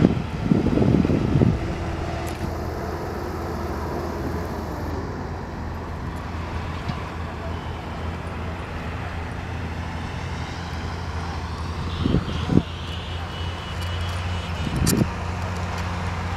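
Steady low rumble of road traffic, with a few short voice-like sounds about a second in and twice near the end.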